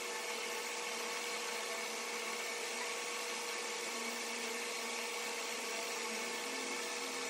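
A small motor's steady whirring hum over a hiss, unchanging in pitch and level.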